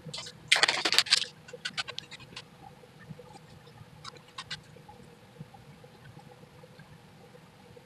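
Sticky lint roller rasping and crackling as it is rolled over cotton twill to pick up loose threads. A loud rasping stretch comes about half a second in, followed by scattered short crackles.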